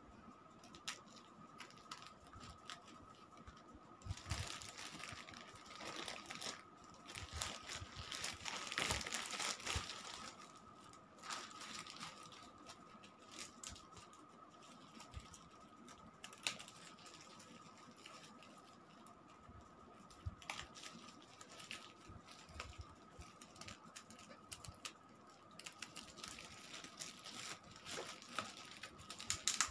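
Plastic packaging crinkling and rustling as a plastic courier mailer and a bubble-wrap pouch are handled and slit open, with scattered small taps and clicks. The handling is busiest and loudest for several seconds in the first third, and a faint steady high tone runs underneath.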